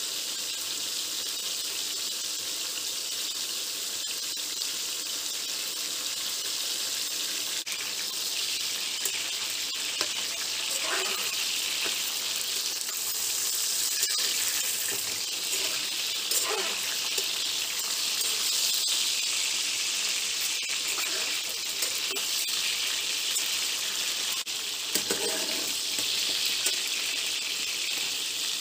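Floured pork liver cubes sizzling steadily in hot seed oil in a frying pan, with a few brief louder scrapes of a metal spatula as the pieces are turned.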